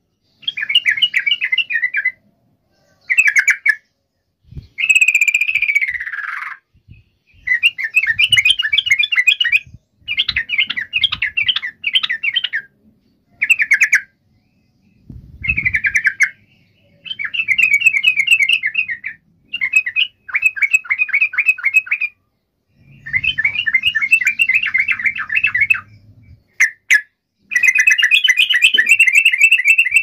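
Yellow-vented bulbul singing: repeated one-to-two-second phrases of quick, bubbly chattering notes with short pauses between them, and one downward-sliding call about five seconds in.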